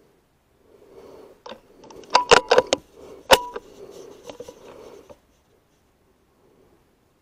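A quick run of sharp metallic clicks and clacks, the loudest single click about three seconds in, with handling rustle around them: the Logun S16 PCP air rifle being handled and cocked for the next slug.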